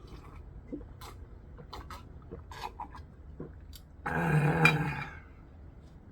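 Light clicks and taps of a cup and dishes, then about four seconds in a loud voiced exhale lasting about a second: the satisfied gasp after a swallow of makgeolli.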